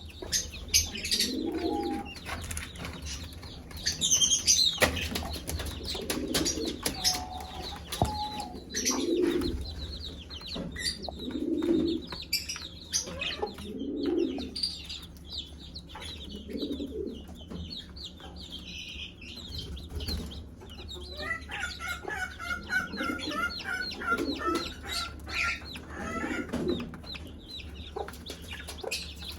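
Mother hen clucking low and repeatedly, a cluck every two to three seconds, calling her chicks to food, while the chicks peep in thin high notes around her.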